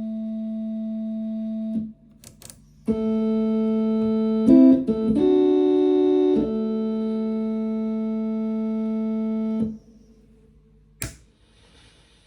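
1970 Vox Continental transistor combo organ playing sustained chords that cut off sharply, with a few notes changing in the middle and short clicks in the gaps. The organ has a parasitic noise that cleaning the busbars did not cure; the owner suspects a capacitor or a transistor.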